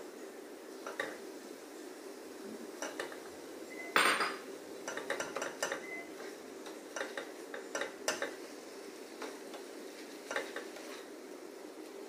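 Black plastic slotted spatula scraping and tapping against a nonstick frying pan while stirring raw minced chicken, in a string of short irregular scrapes and knocks, with one louder clatter about four seconds in.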